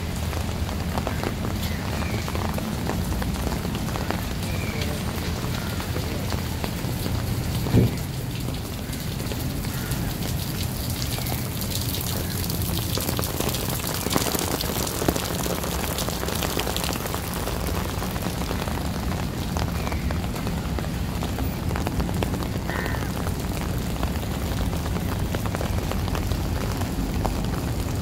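Steady rain falling on wet paving, a dense patter of small drop ticks over a low rumble. A single sharp knock about eight seconds in.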